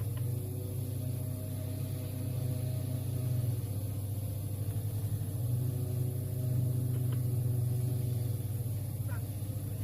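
Heavy mining machinery's diesel engine running with a steady low rumble, and faint tones drifting slightly in pitch above it.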